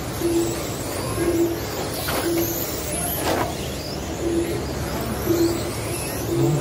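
Electric RC late-model race cars running laps on a dirt oval. Their motors whine up and down in pitch as they accelerate and brake, with one close pass swelling up a little after two seconds in. A short low electronic beep repeats about once a second over the racing.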